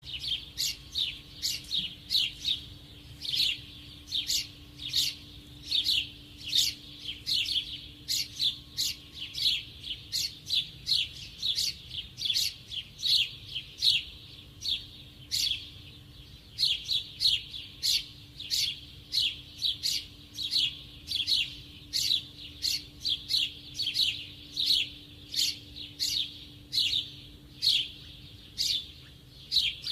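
A small bird chirping: short, sharp, downward-sweeping cheeps, two or three a second in loose clusters, over a faint steady hum.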